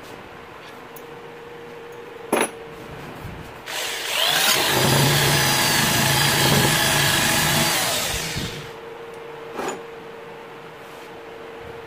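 An electric drill runs for about five seconds, starting a few seconds in and winding down at the end. A sharp knock comes before it and another after.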